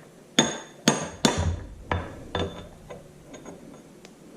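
Hammer tapping a sheet-metal seal into place on a tractor's front wheel hub: three sharp taps in quick succession, then two lighter ones.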